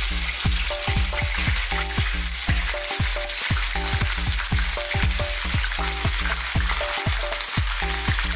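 Pieces of white fish fillet sizzling steadily as they shallow-fry in hot oil in a frying pan, with more pieces being laid into the oil. A background music track with a regular beat runs underneath.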